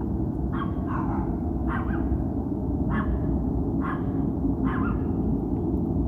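A steady deep rumble from an unseen source in the sky that sounds like a jet taking off close by, with a dog barking about six times over it.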